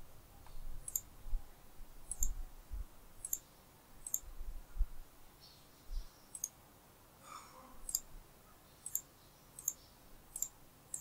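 Computer mouse clicking: about nine single sharp clicks, roughly a second apart, with a few faint low thuds among the earlier ones.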